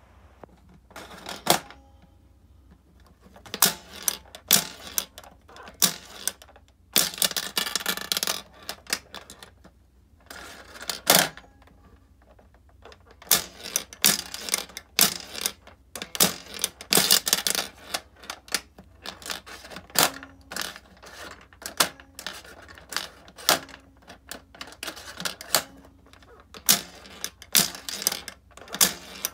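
Steel balls shot by the spring plunger of a Showa-era Yonezawa Kamen Rider toy pachinko board, clacking and rattling off its pins and clear plastic cover. Sharp clicks come in irregular clusters, with spells of dense rapid rattling.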